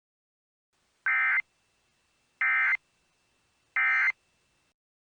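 Emergency Alert System SAME digital data tones: three short, identical warbling bursts about a second and a half apart, the end-of-message code that closes an EAS alert.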